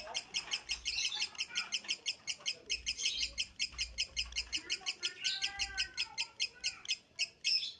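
Lovebird singing a long unbroken run of fast, evenly repeated high chirps, about six a second, that stops abruptly near the end.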